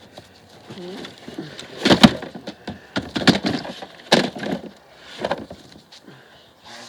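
VHS tape cases knocking and clattering as they are lifted out and set down, a handful of sharp knocks with the loudest about two seconds in.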